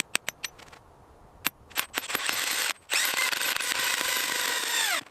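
A run of sharp mechanical clicks and ticks, then a steady grinding hiss for about two seconds that drops in pitch and cuts off.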